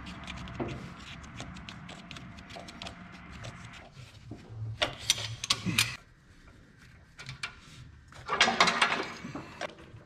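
Hydraulic hose quick couplers on a tractor loader being unplugged and handled: sharp metal clicks and rattling, louder about five seconds in and again near the end, over a low steady hum that fades out about six seconds in.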